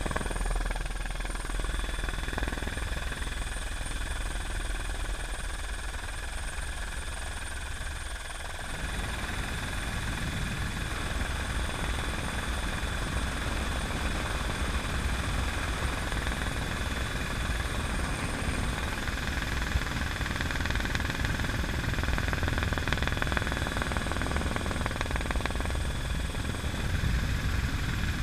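Helicopter in flight, heard from inside the cabin with the door open: a steady rotor and engine rumble with a high steady whine over it. The low rumble grows louder about eight seconds in.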